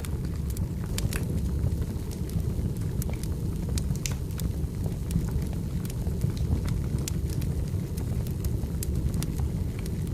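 Firewood burning: a continuous low rumble of flames with many irregular sharp crackles and pops from the wood.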